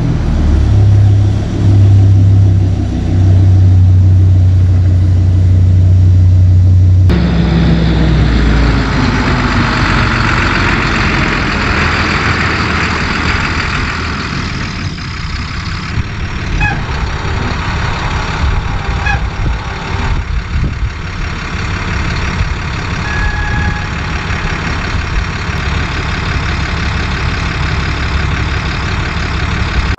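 A pickup truck's engine running as it drives off, then, about seven seconds in, a dump truck's engine running steadily as it works its way up to a boat trailer.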